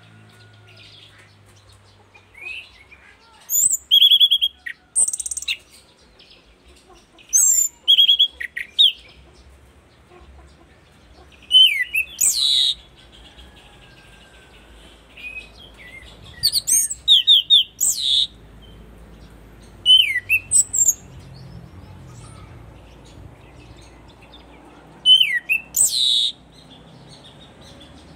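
Caged orange-sided thrush (anis cendana, a punglor) singing loud, varied song phrases of clear whistles and rapid trills, each under two seconds long, repeated every few seconds with short pauses between.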